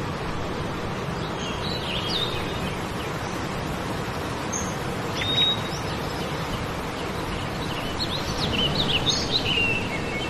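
Steady rush of river water spilling over rocks, with short bird chirps about two seconds in, once more around five seconds, and a busier run of chirps near the end.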